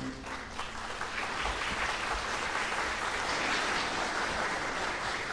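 Concert audience applauding, the clapping building up over the first second or so and staying strong.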